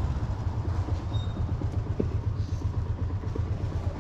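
Motorbike engine running steadily with a low rumble while riding at an even pace.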